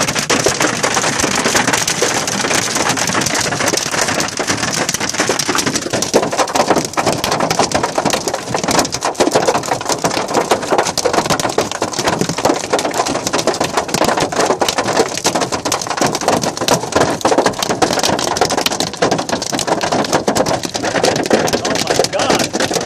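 Heavy hail mixed with rain pelting a car and the ground, a dense, continuous rattle of countless impacts.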